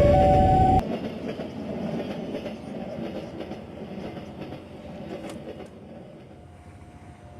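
A train passing a level crossing, loud for the first second with the crossing's warning siren sounding two alternating tones, then both cut off abruptly. The train's rumble fades away with a few faint wheel clicks.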